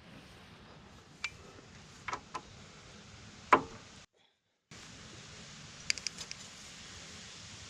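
A handful of sharp knocks and clicks over a steady background hiss, the loudest about three and a half seconds in. The sound drops out briefly just after that, and a quick cluster of clicks follows near the end.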